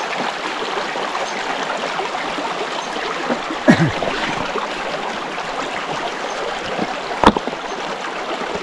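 Stream water rushing steadily past a small dam built across it, with two short knocks, about halfway and near the end.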